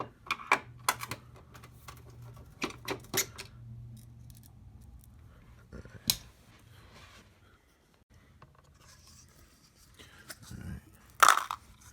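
Irregular sharp clicks and light metallic clatter of hand work on an HP 3330 printer's scanner housing, as screws are turned out with a screwdriver and the small parts are handled. A faint low hum runs under it for the first several seconds.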